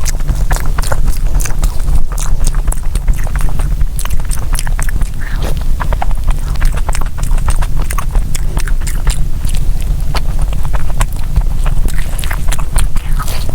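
Close-miked eating sounds: wet chewing and lip smacking, with many sharp mouth clicks, over a steady low hum.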